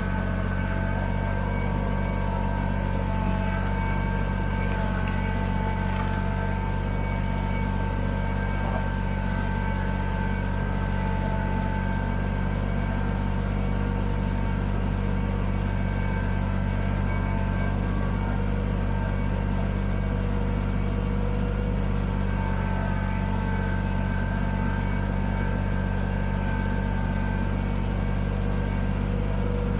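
Kubota BX25D sub-compact tractor's three-cylinder diesel engine running steadily under load while pushing snow with a loader-mounted plow, with a steady whine above the engine note.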